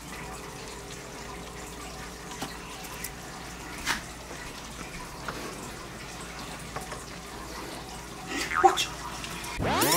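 Hot candy syrup bubbling softly in the pot, a steady low hiss with a few light knocks as apples are dipped and set down on the tray. Electronic music with sweeping tones starts just before the end.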